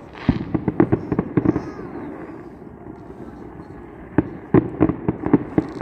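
Fireworks going off: a quick run of sharp cracks and bangs over the first couple of seconds, then another run from about four seconds in.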